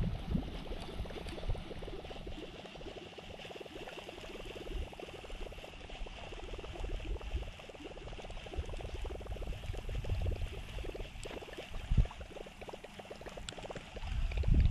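Baitcasting reel cranked steadily to retrieve a lure, its gears giving a fast, fine rattling tick, with wind buffeting the microphone now and then and a sharp thump about twelve seconds in.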